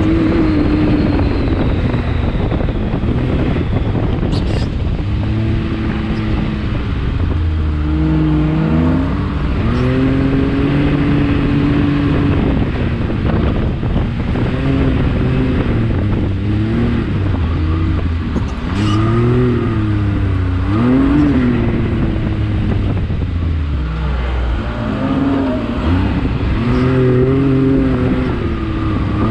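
Can-Am Maverick X3 XRC Turbo's turbocharged three-cylinder engine running hard over sand, its pitch rising and falling again and again as the throttle is opened and eased. Wind and driving noise lie beneath it throughout.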